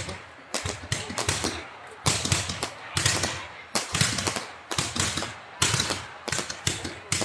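Fireworks going off in quick succession: clusters of sharp bangs and crackles, about one cluster a second.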